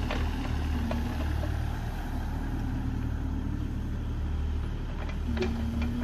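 Kubota mini excavator's diesel engine running steadily as the machine tracks through grass and swings its boom, with a held whine that comes and goes and occasional clanks and clicks from the tracks and arm.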